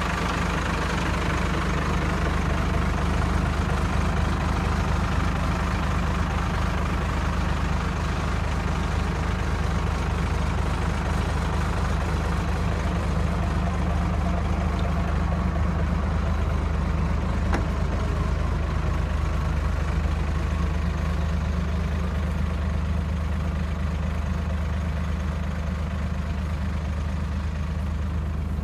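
Freightliner FL70's 5.9 Cummins inline-six diesel idling steadily.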